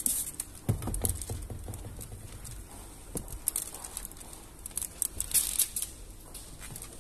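Window tint film and its plastic liner crinkling and crackling as they are handled against car window glass, in irregular crackles and taps, with a low knock about a second in and a louder burst of crackling a little past the middle.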